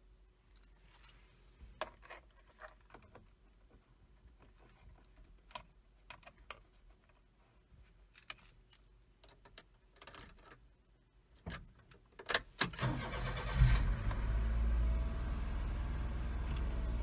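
Keys jingling and clicking on a keyring, then the 2003 Suzuki Carry DA63T's 660 cc three-cylinder engine cranks and starts after about twelve seconds. It flares briefly and settles into a steady idle.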